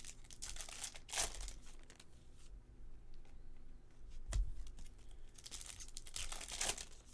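Foil trading-card pack wrappers crinkling and tearing as packs are opened and cards handled, in several short rustling bursts. There is a soft thump about four seconds in.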